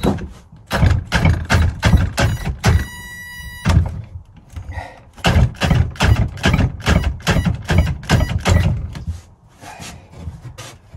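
DeWalt cordless drill driving a long screw through a bench vise base into wood, straining under the load in two runs of rapid knocking at about five a second, with a brief high whine about three seconds in. The screw is too much for the drill.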